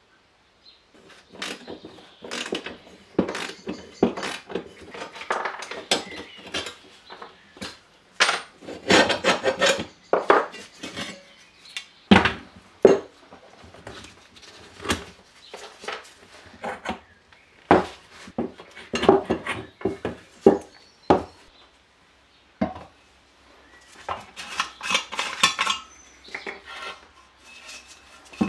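Rusty steel tiller parts handled and set down on a wooden workbench: irregular clinks, knocks and rattles of metal on metal and on wood.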